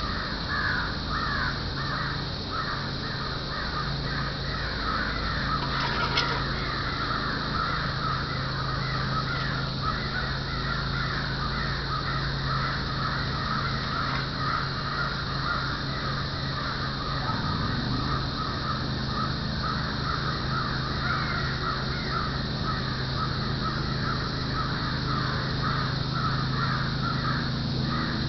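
A continuous chorus of short animal calls repeated several times a second, over a steady low hum, with a single click about six seconds in.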